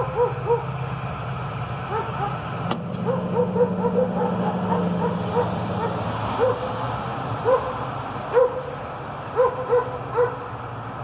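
A dog barking with short, high yips in quick clusters of two or three, over a steady low hum.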